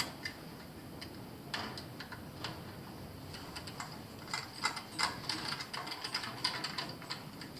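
Hands working on a Honeywell zone valve and its low-voltage wiring: scattered small clicks and rattles of plastic and metal parts, growing busier about halfway through.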